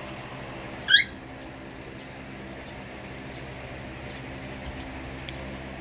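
A puppy gives one brief, sharp, rising squeak about a second in. Under it runs a steady low mechanical hum.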